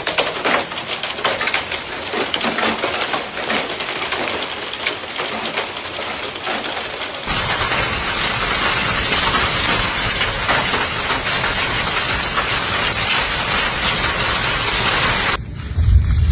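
Hailstones and rain pelting down on hard surfaces: a dense, loud clatter of many sharp impacts. About seven seconds in the sound changes to a fuller, steadier downpour with more rumble.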